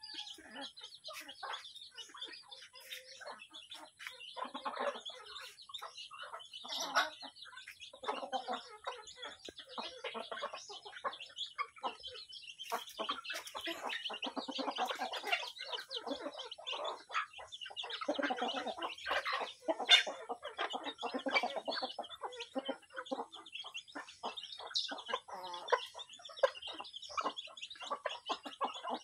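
Flock of free-range chickens clucking continually while they feed, many short irregular calls overlapping.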